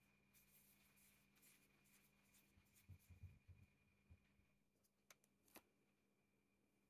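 Very faint crinkling and rustling of crumpled paper. About three seconds in come a few soft low thumps, and two short sharp clicks follow near the end.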